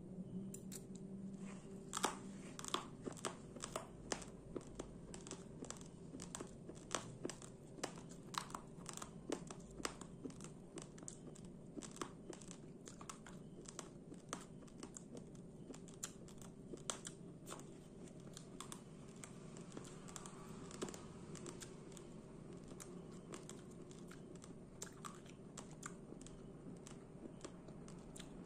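Crunching of uncooked brown rice grains being chewed: a run of sharp, irregular crackles, several a second, denser and louder in the first half and thinning out toward the end.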